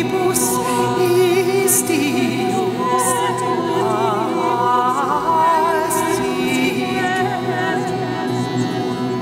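A small group of voices singing a cappella in harmony, long held notes with a wide vibrato, with a few short hissing consonants.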